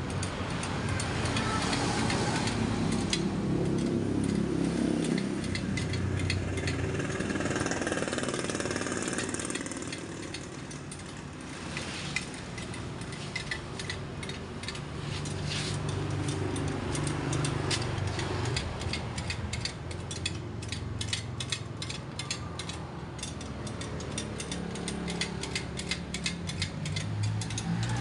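Steel spokes and a spoke wrench clicking and ticking as the spoke nipples of a motorcycle wheel are tightened on a truing stand. The clicks come thicker about halfway through, over a steady low drone.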